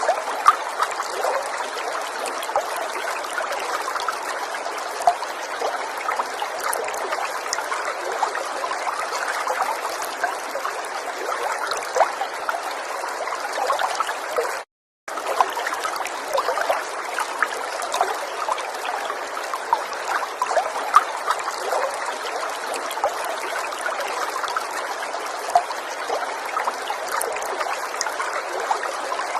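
River water running steadily over stones: a dense trickling and babbling full of small splashes. The sound cuts out completely for a fraction of a second about halfway through.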